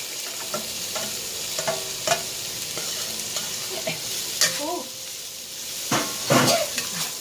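Onion, ginger and garlic sizzling in hot chili oil in a non-stick wok, stirred with a spatula that scrapes and taps against the pan. The loudest scrapes come about six seconds in.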